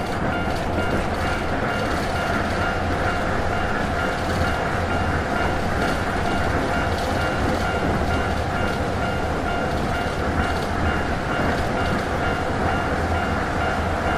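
A train running on rails, a steady continuous rumble with faint steady tones held above it.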